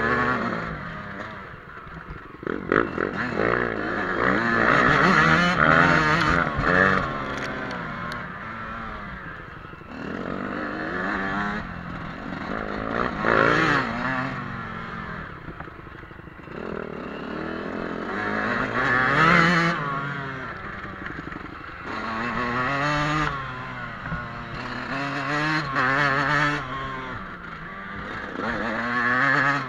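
Yamaha YZ125 two-stroke dirt bike engine heard from on the bike, revving up and easing off over and over as it is ridden along a dirt trail, the pitch climbing and dropping with each burst of throttle.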